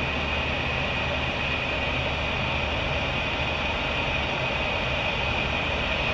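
Boeing 717 flight deck in flight: a steady rush of cockpit noise with a thin, steady high-pitched tone over it.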